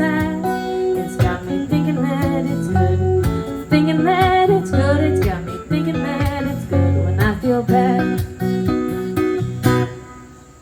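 Live acoustic band with guitar playing the closing bars of a song, with some singing. It ends on a final chord that dies away near the end.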